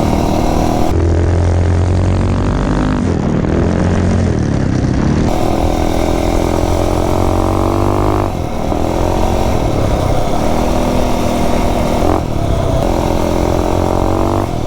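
Rebuilt Tillotson 263 single-cylinder four-stroke engine on a minibike running under way, its pitch rising and falling as the throttle is opened and eased off several times. The engine is in its break-in and its carburettor is set up a little rich.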